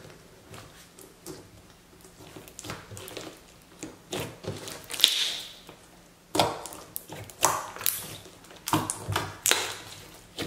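Clear slime packed with cubes of melamine foam sponge being squeezed and kneaded by hand: irregular wet squelches, pops and crackles as the sponge cubes are pressed through the slime. The loudest crackling squelch comes about five seconds in, followed by a run of sharp ones through the second half.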